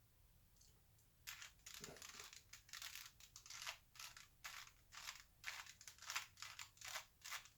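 Plastic layers of a 2x2 Rubik's cube being turned in quick succession, a run of sharp clicks about three a second starting about a second in: the final colour-matching algorithm being worked through move by move.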